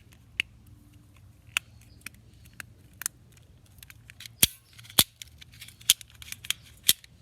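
A small handheld fidget toy being worked by hand, giving sharp irregular clicks and snaps. They are sparse at first, then come as a run of louder clicks over the last few seconds.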